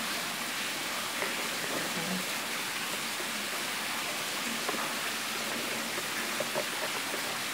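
Wire whisk stirring runny pancake batter in a plastic bowl: a steady wet swishing with faint scattered taps.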